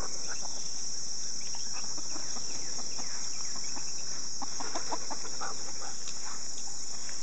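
Steady high-pitched chorus of insects, with chickens clucking over it: a few short clucks early on and a denser cluster about four to five and a half seconds in.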